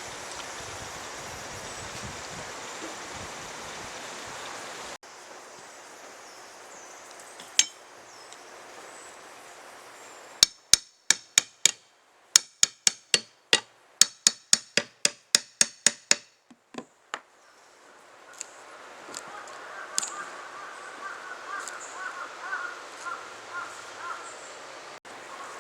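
A hammer driving nails into deck boards: about a dozen sharp, ringing strikes at roughly three a second, in two runs with a short pause between. Before them is a steady outdoor hiss, and faint chirping follows.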